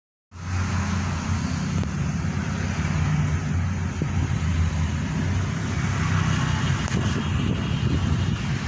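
Engine of a drilling machine running steadily, starting about a third of a second in.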